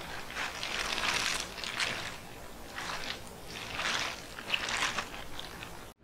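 Irregular rustling and crunching in about five separate bursts, typical of movement through dry brush or vegetation.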